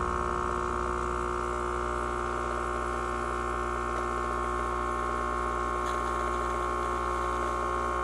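Hamilton Beach 40729 espresso maker's pump running with a steady electric buzzing hum, pushing water and steam through the machine.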